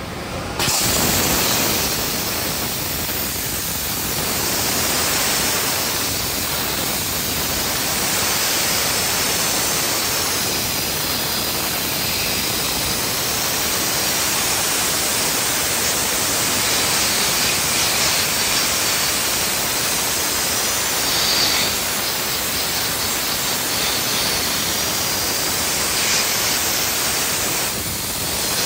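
Loud steady hiss of a hand-held high-pressure cleaning nozzle blasting grime off a metal plate, easing slightly near the end.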